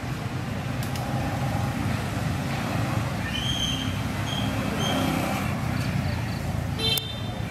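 Steady low rumble of background noise, with three short high chirps in the middle and a brief sharp squeak near the end.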